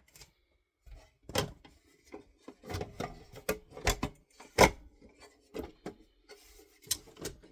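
A computer case panel being fitted back on: irregular knocks and clicks with some scraping as it is pushed and slid into place, the sharpest knock about four and a half seconds in.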